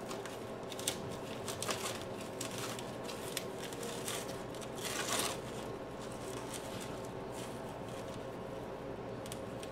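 Hands pressing and working loose orchid potting mix of peat, perlite and charcoal into a pot: light, irregular crunching and rustling with small clicks, and a louder scrape about five seconds in.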